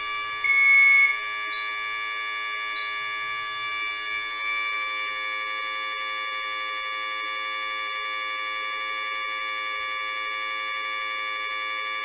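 Fire alarm control panel (receiver) sounding its continuous electronic alarm tone, the alarm state set off by a photoelectric smoke detector going into fire signal. The tone is steady throughout, with a short louder beep about half a second in.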